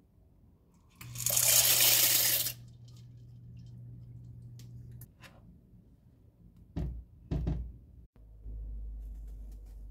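Dry elbow macaroni poured from a plastic measuring cup into a pan of milk: a brief rush of noise starting about a second in and lasting about a second and a half. Two dull knocks follow near the end, then a low steady hum.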